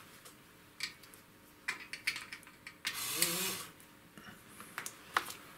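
Small servo motor and gear train of an aircraft angle-of-attack indicator briefly whirring when power is applied, with scattered mechanical clicks; the loudest burst comes about three seconds in. The motor is running because it was left connected.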